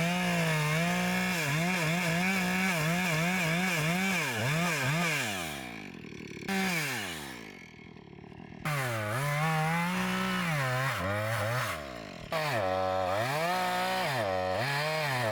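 Chainsaw bucking a felled tree into lengths, its engine speed wavering up and down under load as it cuts. The revs drop away a couple of times and come back up sharply.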